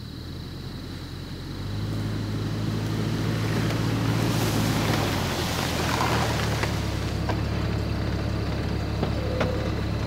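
Jeep Grand Cherokee engine running at low speed as it drives through tall grass, growing louder from about a second and a half in, with a rush of grass noise in the middle.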